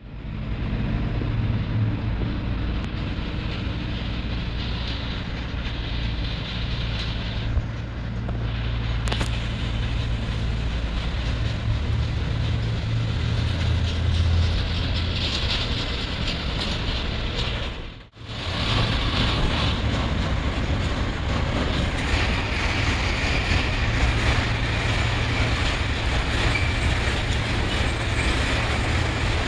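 DB Cargo Vectron locomotive hauling a freight train of coal wagons, a steady low rumble of the train running on the rails. The sound drops out for a moment about two-thirds of the way through, then carries on.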